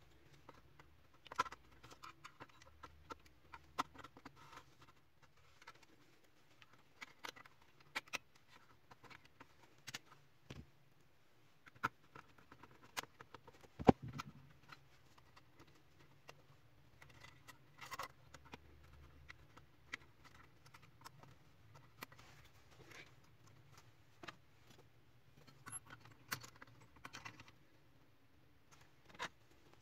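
Scattered clicks, taps and light knocks of small plastic and metal parts being handled and fitted inside an opened HP LaserJet 3055 laser printer, with one sharp knock about 14 seconds in.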